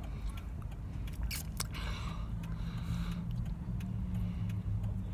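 An engine running with a low, steady hum, joined by a few sharp clicks about a second and a half in.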